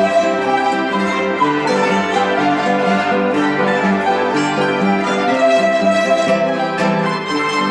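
A Mexican salterio ensemble playing a song: zither-like strings ringing out a melody over chords.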